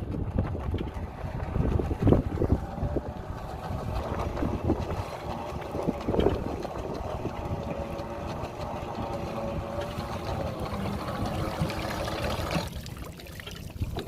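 Small boat's motor running steadily with wind buffeting the microphone; the motor sound drops away sharply near the end.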